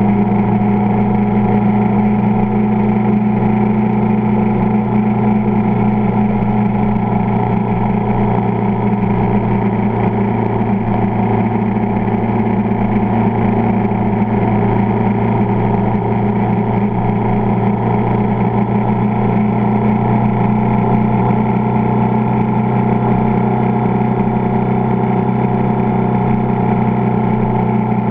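Vehicle engine and road noise at a steady cruise, a constant low drone that holds the same pitch throughout.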